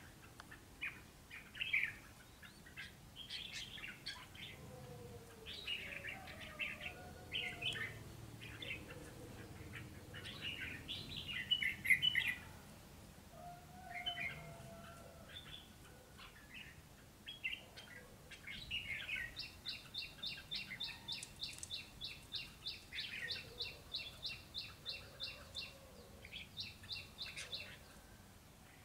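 Red-whiskered bulbuls calling: scattered short chirps and warbled phrases, then in the second half a rapid run of repeated sharp notes, about four a second, lasting several seconds.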